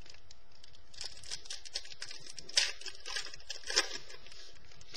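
Football trading cards being handled and slid past one another, soft rustling and crinkling with light clicks, and two sharper snaps about two and a half and four seconds in.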